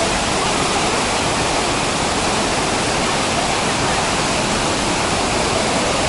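White water of the Düden River rushing down a rocky cascade: a steady, even rush of water.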